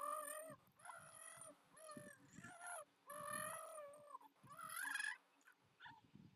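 Baby making a run of high-pitched squealing vocal sounds, about five drawn-out calls whose pitch bends up and down; the last one rises.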